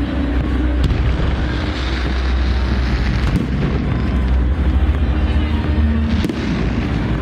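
Fireworks display: a dense, continuous rumble and crackle of many bursts, with a few sharper bangs standing out.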